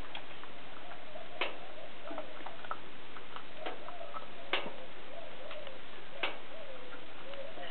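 A burning kerosene heater (Kero-Sun Radiant 10) giving off sharp metallic ticks at uneven intervals of a couple of seconds, typical of its hot metal expanding, over a faint wavering tone.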